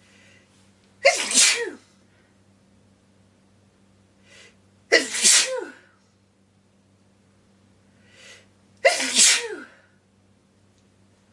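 A person sneezing three times, about four seconds apart, each sneeze preceded by a short breath in and ending in a voiced tail that drops in pitch.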